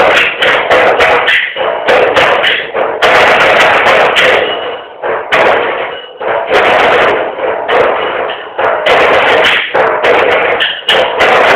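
Percussion ensemble playing drums with sticks: a loud, dense rhythm of rapid strikes, with a brief lull about five to six seconds in.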